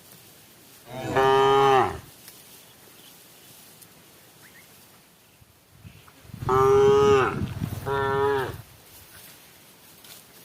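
A cow mooing three times: one call about a second in, then two more close together past the middle, each call dropping in pitch at its end.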